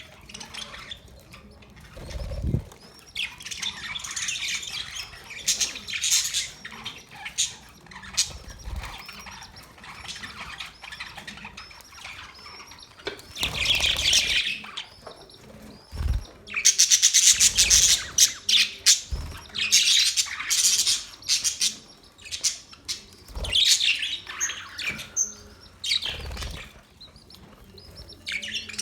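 Budgerigars chirping and chattering continuously, in rapid strings of high calls with louder, denser bursts about halfway through. A few dull low thumps sound now and then.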